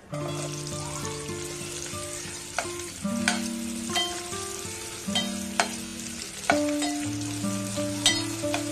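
Sliced onions hit hot oil in an aluminium pot and start sizzling at once. They are then stirred with a metal ladle that knocks against the pot about six times.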